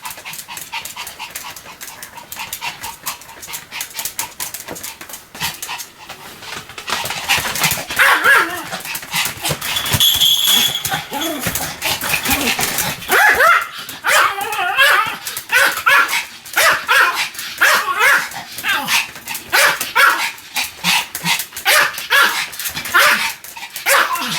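Pomeranian barking over and over in short, quick barks, softer for the first several seconds and louder from about a third of the way in.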